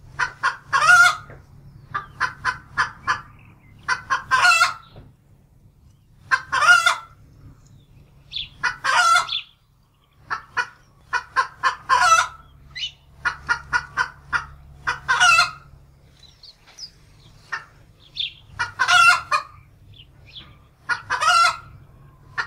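Chickens clucking and cackling in repeated runs: several short, quick clucks, each run ending in a longer, louder call, about every two to three seconds.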